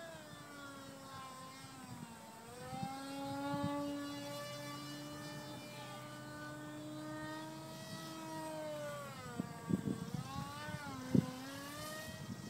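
Electric 2800KV brushless outrunner motor and pusher propeller of a small RC flying wing, whining in flight, its pitch dipping and climbing again twice. A few sharp knocks sound near the end.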